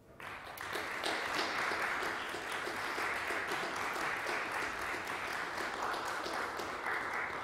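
Applause: many hands clapping, starting sharply just after the start and holding steady.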